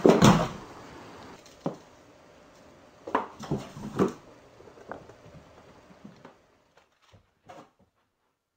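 Cardboard box rustling and scraping at first, then a handful of separate light knocks and taps on the cardboard that grow fainter and die away.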